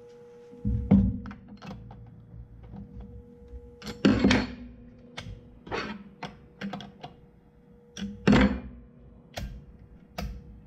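Handling noises from assembling a new Stihl MS462 chainsaw: scattered light clicks and several heavier clunks, the loudest about a second in, about four seconds in and about eight seconds in.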